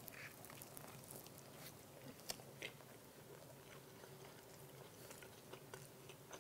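A bite into a black bean veggie burger on a bun, then faint chewing with a few soft mouth clicks, two of them sharper about two and a half seconds in.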